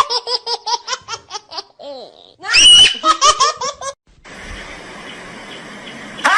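A small child laughing hard in quick, high-pitched bursts, about four a second, with a loud squeal near the middle. About four seconds in, it cuts abruptly to a steady background noise.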